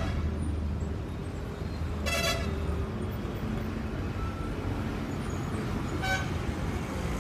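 Steady street traffic rumble with a vehicle horn sounding twice: a short toot about two seconds in and a briefer one about six seconds in.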